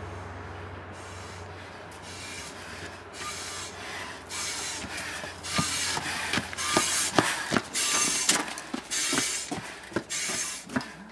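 Footsteps of a firefighter in boots and turnout gear on a snowy path, coming closer and passing, about two steps a second, loudest around the middle, with the rustle of his heavy gear.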